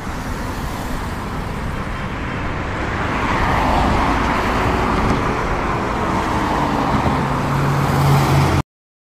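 Road traffic: the steady noise of cars going by, swelling about three to four seconds in, with a low engine hum near the end before the sound cuts off suddenly.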